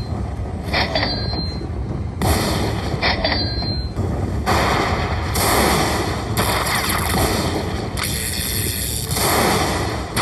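Lightning Link slot machine bonus sound effects: loud booming, crashing effects in blocks that start and stop abruptly every couple of seconds, with a few short high chimes in the first few seconds.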